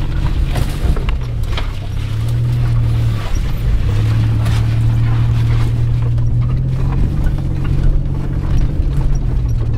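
Mitsubishi Pajero's engine running with a steady low hum as it drives over a rough off-road track, with occasional knocks and rattles from the bumps. The hum briefly drops away about three seconds in.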